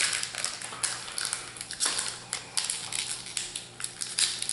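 Foil wrapper of a Magic: The Gathering booster pack crinkling and crackling in the hands, in quick irregular crackles, as it is crumpled and a fresh pack is handled to be torn open.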